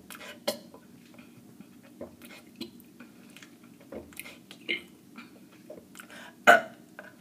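A person's mouth and throat swallowing air to burp the alphabet: scattered short gulps and clicks, with one loud, brief sound about six and a half seconds in.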